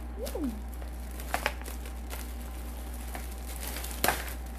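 Plastic packaging crinkling while plastic chocolate molds are handled and unwrapped, with two sharper crackles, one about a second and a half in and one about four seconds in.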